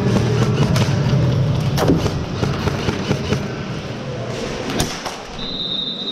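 Airsoft guns firing and BBs striking around a large indoor arena: irregular sharp cracks and thumps. A steady high tone starts near the end.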